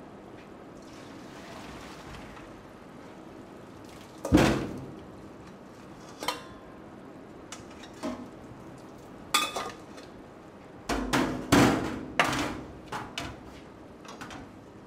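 Stainless-steel saucepans clanking against a steel sink and worktop as cooked pasta is drained and the pans are handled. It is a run of sharp metallic knocks, loudest about four seconds in and in a cluster around eleven to twelve seconds.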